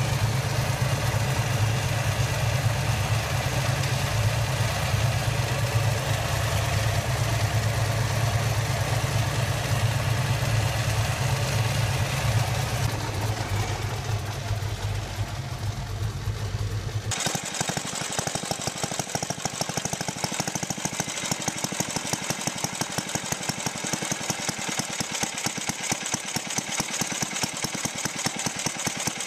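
Supercharged V8 with a polished belt-driven Roots-type blower running at a steady idle, with a deep low rumble. About two-thirds of the way through it cuts to a small air-cooled single-cylinder engine with a see-through cylinder head, running with a fast, even, rapid popping and little bass.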